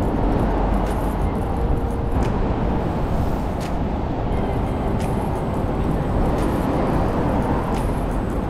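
Busy city street noise: a steady rumble of road traffic running past, with a few faint clicks.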